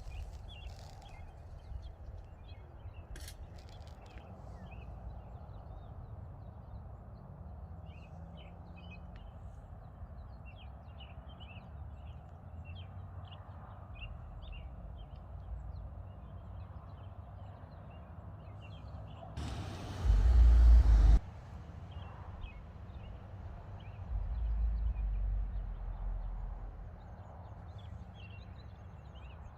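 Small birds chirping, many short high calls repeated throughout, over a low outdoor rumble. About twenty seconds in, a loud rush of noise lasts more than a second, and a few seconds later the low rumble swells for a couple of seconds.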